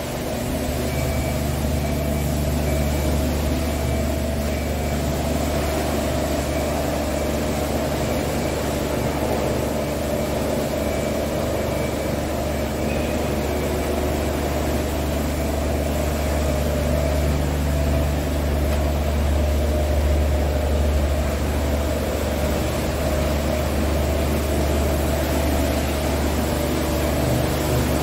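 Scania R480 tractor unit's six-cylinder diesel engine idling steadily.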